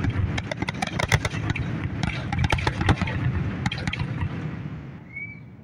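Aerial firework shells bursting overhead: a rapid run of sharp crackles and pops that thins out and dies away about four to five seconds in.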